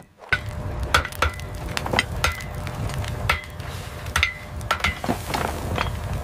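Blacksmith's hammer striking hot iron on an anvil, a dozen or so irregular ringing metallic blows, over a steady low rumble from the forge fire. A hiss comes in near the end as steam rises from the quench trough.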